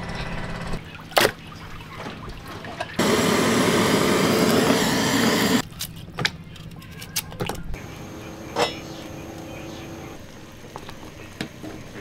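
Food-preparation sounds: a few sharp knocks, and a loud steady rushing hiss lasting about two and a half seconds from about three seconds in.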